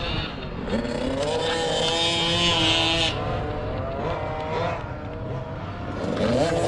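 Racing motorcycle engines on a dirt TT track, several at once, climbing in pitch as the bikes accelerate about a second in and again near the end.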